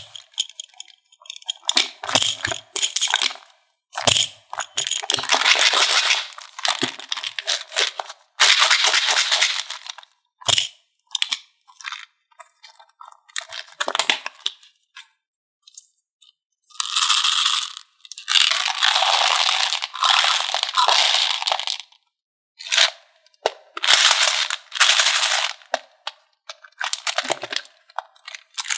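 Crackling, crunching sounds of M&M's candies being mixed into slime. They come in bursts lasting from a moment to a few seconds, with dead silence between them.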